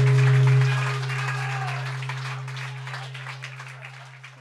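Audience applause, many hands clapping, over a low steady held tone. Both fade away gradually over the last few seconds.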